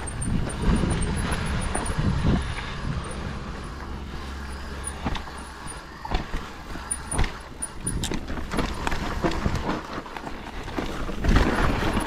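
Mountain bike descending a rough dirt trail: a steady rush of wind on the microphone and tyres rolling over dirt, with the chain and frame clattering over bumps, louder about 11 seconds in.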